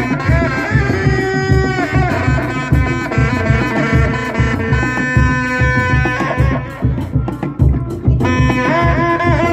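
Reak music: dogdog drums played in a steady interlocking beat, with a held, wavering melody line sounding above them.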